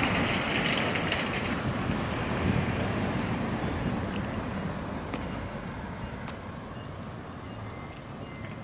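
Road traffic: cars driving past on a city street, the noise gradually fading.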